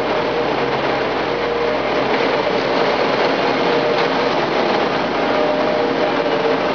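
Gehl loader with a bucket sweeper attachment running steadily: continuous engine and machinery noise with a steady hum.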